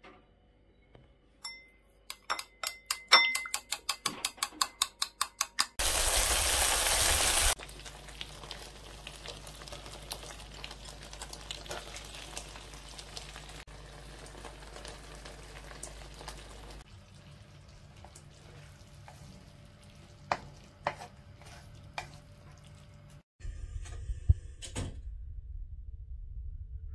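Stir-fry cooking sounds. A spoon clinks quickly against a bowl, about four or five times a second, as the sauces are mixed. A short loud sizzle follows, then the steady crackle of frying in the pan, with a wooden spatula knocking and scraping as it stirs.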